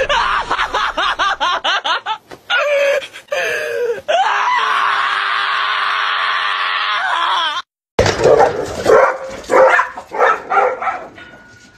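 A dog screaming in fast repeated high cries, then a long held scream. After a short break, dogs bark in a run of sharp barks.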